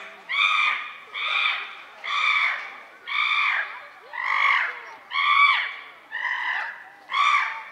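An animal calling over and over in a steady rhythm, about one short, harsh, falling call a second.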